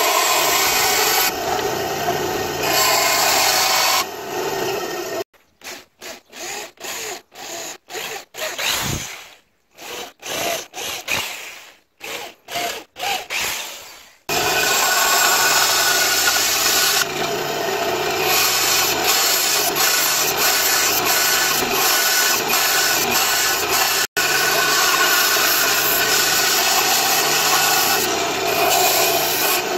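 Band saw cutting a wooden knife-handle scale, a steady dense blade noise. From about five to fourteen seconds in, it gives way to a run of short separate scraping strokes, roughly two a second, before the band-saw cutting resumes.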